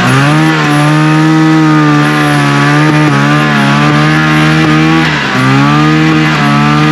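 1974 Arctic Cat Lynx's fan-cooled 340 two-stroke engine running on throttle. It climbs in pitch at the start, holds steady, drops briefly about five seconds in and picks back up. The engine has been revived after sitting unused for five years.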